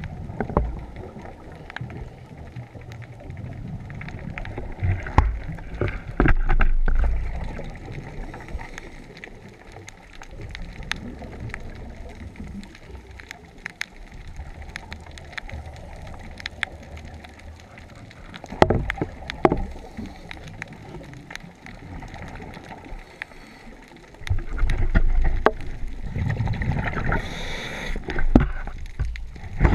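Underwater scuba audio: a diver's exhaled regulator bubbles rumbling in surges, about 6 s in, again near 19 s, and in a longer spell from about 24 s on, with scattered small clicks and knocks between them.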